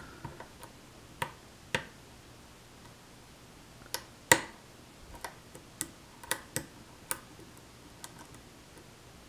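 Sharp, irregular clicks from a steel hook pick working the pin stacks of a challenge lock cylinder under tension: the clicks of pins being lifted, setting and oversetting as the lock is picked. The loudest click comes about four seconds in.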